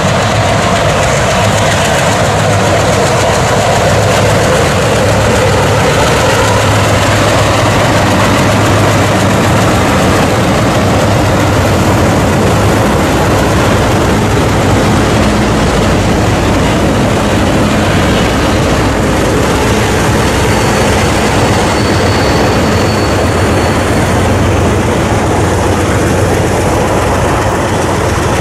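Six-axle Alco/MLW diesel locomotives working hard as they pull a heavy freight train past at close range, with a loud, steady engine sound. Toward the end the locomotives give way to freight cars rolling by on the rails.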